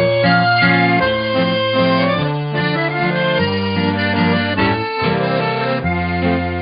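Instrumental background music: a tune of held, overlapping notes that change every fraction of a second.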